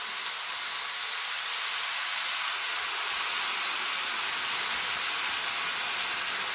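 Boiled noodles frying in hot oil with dark soy sauce in a pan: a steady, even sizzle.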